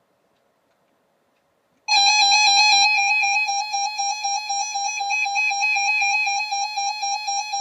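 Silence, then about two seconds in an electronic alert tone starts abruptly and holds steady: several pitches sounding together, with a slight regular pulsing in loudness.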